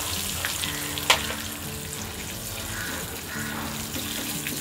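Hot oil sizzling steadily in a small tempering pan as dried red chillies, curry leaves, mustard seeds and urad dal fry for a tadka. A single sharp click about a second in.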